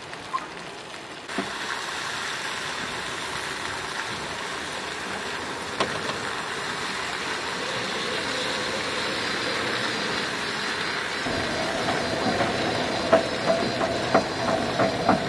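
Wind and rain, a steady rushing that builds slowly. A few seconds before the end, a steady hum and a run of sharp taps join in.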